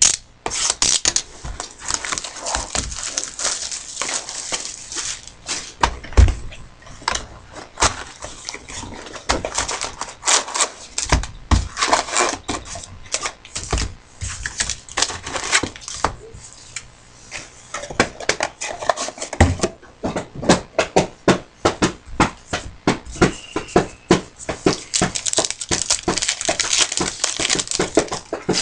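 Trading card packs being torn open and their foil wrappers crinkled, with cards handled and flicked through: a dense run of irregular crackles and clicks.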